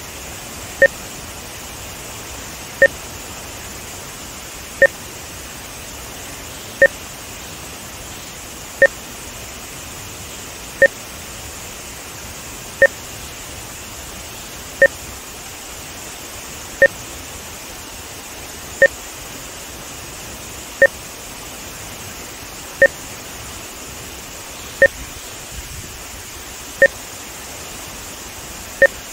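Short electronic beeps every two seconds, each a brief two-tone pip, used as audio timing markers for video-and-audio sync measurement. Beneath them is the steady rush of water pouring over a dam spillway.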